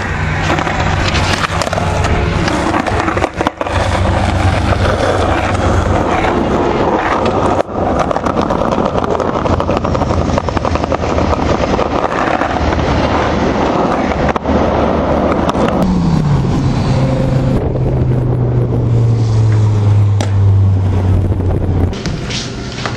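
Skateboard wheels rolling over concrete pavement, a loud, continuous rumble broken by a few sharp clacks of the board. About two-thirds of the way through, a low hum drops in pitch and then holds steady until near the end.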